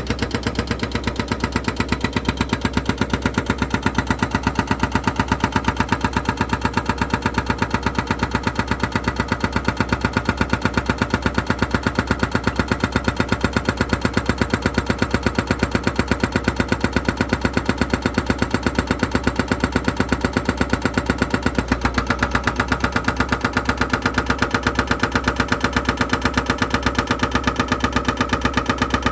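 An engine running steadily at idle with an even pulsing beat, about four pulses a second; its tone shifts slightly a little after twenty seconds in.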